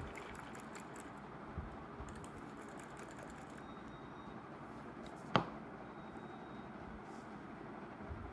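Faint rustle of a plastic spray bottle being turned in the hands over a steady hiss, with a few light clicks and one sharp tap about five seconds in.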